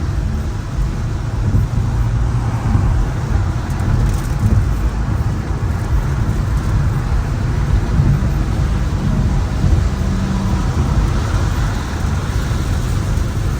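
BMW M5 Competition driving at highway speed in heavy rain: a steady low road-and-tyre rumble on the wet road with rain noise over it and a faint engine drone underneath.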